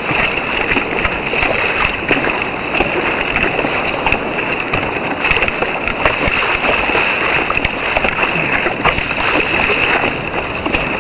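Sea water splashing and sloshing against a sea kayak's bow as it is paddled out through choppy surf, with a steady rush of water and frequent short, sharp splashes.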